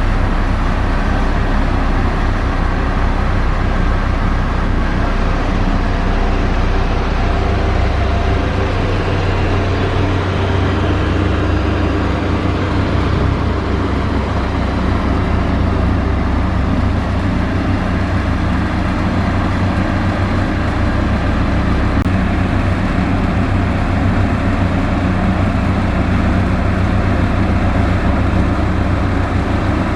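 Heavy diesel engine of a construction machine running steadily under load, a dense low rumble whose lowest note shifts about ten seconds in.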